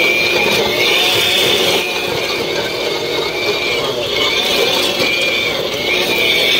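Corded electric rototiller running under load, its tines churning dry soil. The motor's high whine dips and rises in pitch over and over through a steady mechanical clatter.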